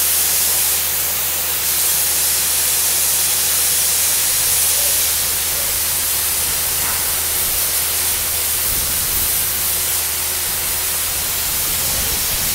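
Compressed air from a high-power compressor blowing muddy water and silt up out of a borewell casing: a steady hissing rush of spray with a low hum underneath. It is an air-flush cleaning of a bore clogged with mud.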